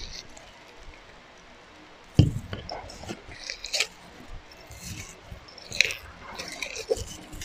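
Clear slime loaded with jelly cubes and foam beads being squeezed and pressed by hand for ASMR: irregular wet squelches and crackles, the loudest about two seconds in.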